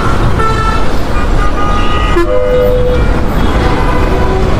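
Several vehicle horns honking at different pitches amid the steady rumble of slow, heavy road traffic; the longest blast, about a second long, comes a little over two seconds in.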